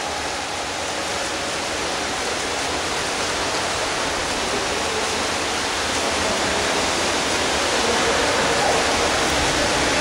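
Steady rush of splashing water from water polo players swimming hard through the pool, reverberating in an indoor pool hall.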